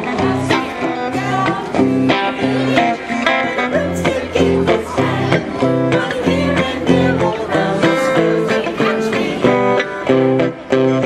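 Electric guitar strumming a steady rhythmic accompaniment while a small group sings a Christmas carol.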